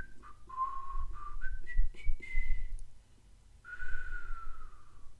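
Whistling of a short tune: clear held notes stepping up in pitch, then after a brief pause one long note that slides downward.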